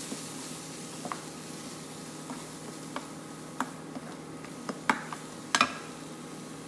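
Cooking spoon stirring spiced tomatoes in a ceramic-lined frying pan, giving irregular light clicks and taps against the pan, the loudest two about five seconds in, over a faint steady sizzle of frying.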